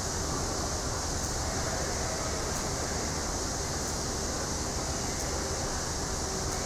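Steady rushing background noise with no distinct events in it.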